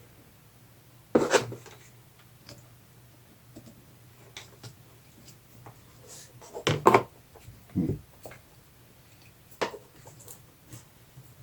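A few scattered clicks and knocks of hands handling small parts and meter probes, over a faint steady hum. The loudest cluster comes about seven seconds in.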